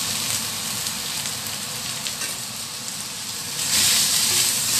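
Fried rice and freshly added soaked seaweed sizzling in a stainless steel wok. The sizzle is steady and gets louder about three and a half seconds in.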